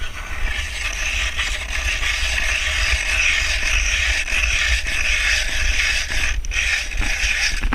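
Ice auger drilling a hole through lake ice, a steady mechanical grinding and scraping that breaks off briefly about six and a half seconds in and stops near the end.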